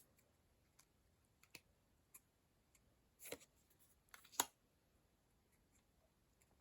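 Near silence broken by a few faint clicks and brief rustles of trading cards being handled and flipped, the clearest about four seconds in.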